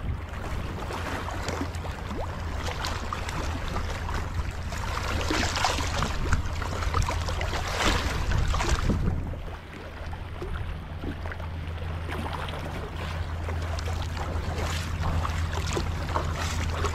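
Wind rumbling on the microphone over shallow sea water lapping and splashing around rocks, the splashing loudest in the middle.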